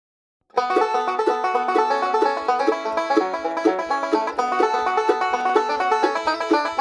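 Bluegrass band starting up about half a second in, a banjo picking fast, even rolls over a steady plucked bass.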